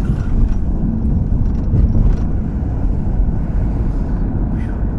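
Steady low rumble of a car's tyres and engine heard from inside the moving vehicle.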